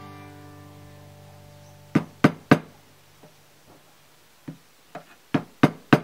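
Acoustic guitar background music: a chord rings out and fades, then sharp knocks come in two quick runs of three, about a third of a second apart.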